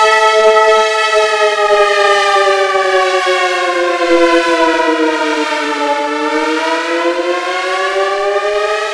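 Synthesized Federal Signal 2001 dual-tone (8/12-port) siren sounding a loud chord. It holds steady at first, then slowly falls in pitch for about four seconds and climbs back up toward the end.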